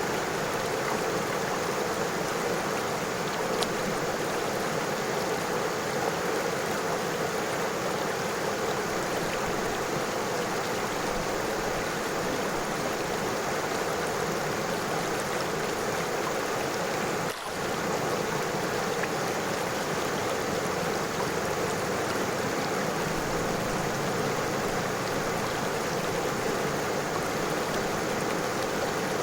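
River water flowing over stones, a steady rushing and babbling with no change, apart from a brief dip in level about seventeen seconds in.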